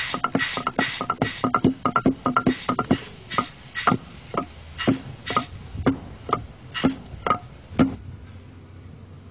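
Music: a percussion beat of sharp drum hits, quick at first, then spacing out to about two a second. The last hit comes near the end, and the track fades out.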